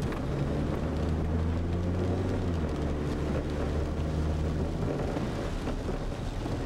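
Low, steady engine rumble, as of a vehicle's motor running, its pitch shifting about five seconds in.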